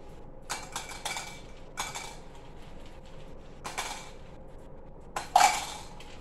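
Small pieces dropped by hand into clear drinking glasses as they are sorted: bunches of clinks with a short glassy ring, coming every second or two, the loudest about five seconds in.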